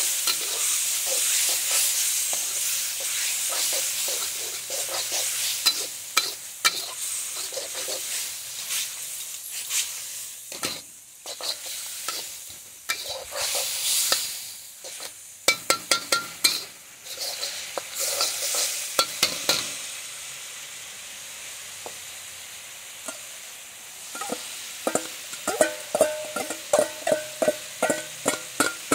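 Wide rice noodles sizzling in a hot wok while a metal spatula scrapes and taps against the pan; the sizzle is loudest at first and dies down. Near the end comes a quick run of ringing metal clinks as a spoon knocks food out of a stainless steel bowl into the wok.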